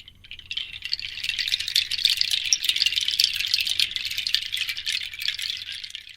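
Continuous fast rattling, building up in the first second and fading out near the end.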